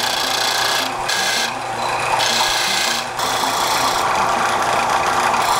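Disc sander running with a resin-and-wood guitar pick held against the spinning disc: a steady grinding hiss over the motor's constant hum, the hiss dropping out briefly three times in the first three seconds. The pick's outline is being sanded down to its final shape after rough cutting on the saw.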